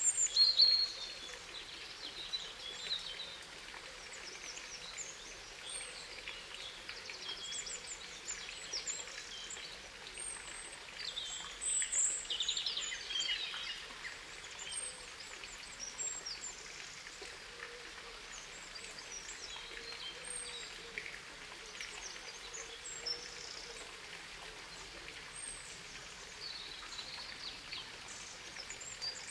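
Birds chirping and trilling in short calls scattered throughout, over a faint steady outdoor hiss.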